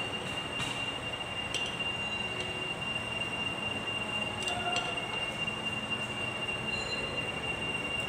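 A steady high-pitched whine over a constant noisy hum, with a few light metal clicks from a wrench being worked on a tractor's wheel nuts.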